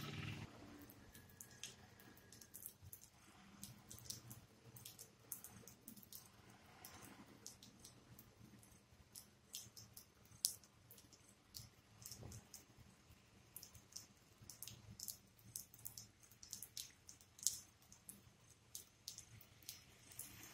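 Quiet, with scattered irregular ticks of water dripping after rain, several a second, and two sharper ticks, one near the middle and one later on.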